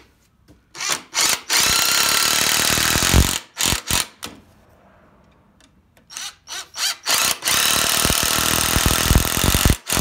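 Cordless drill driving two pocket-hole screws into a 2x4 joint. Each screw starts with a few short trigger blips, then runs steadily for about two seconds until the screw seats.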